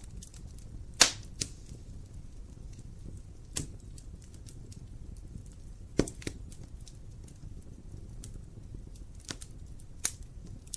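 Wood fire crackling in a fireplace: sharp, irregular pops and snaps from the burning logs over a low, steady rumble of the flames. The loudest pops come about a second in and about six seconds in.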